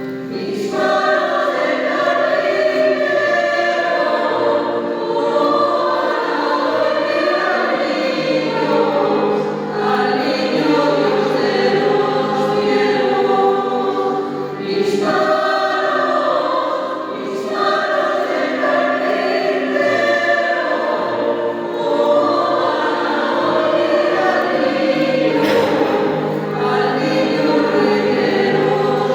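Music: a choir singing sustained phrases, with short breaks between phrases every few seconds.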